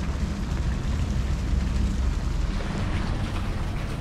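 Wind buffeting the microphone: a steady, uneven low rumble with a hiss above it.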